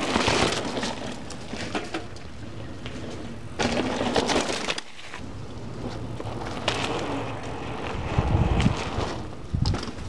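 Hardtail mountain bike riding over a dry, leaf-strewn dirt trail with rocks: tyres crunching through leaves and rattling over stones, with scattered clicks and knocks and a low rumble of wind on the microphone. Louder near the start and again about four seconds in, with a sudden brief drop just before five seconds.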